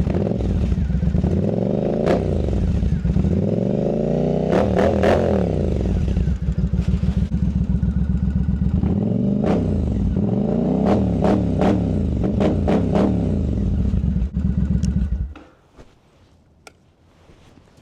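2012 Triumph Scrambler 900's air-cooled, fuel-injected parallel-twin idling while it warms up before an oil change, with sharp metallic clicks of tool work on the bike. The engine shuts off about fifteen seconds in, leaving only faint clicks.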